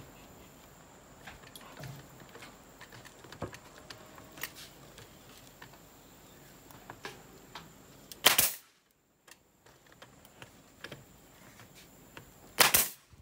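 Pneumatic nail gun firing twice, about four seconds apart, driving nails through a wooden strip into plywood, with faint knocks of the wood being handled in between.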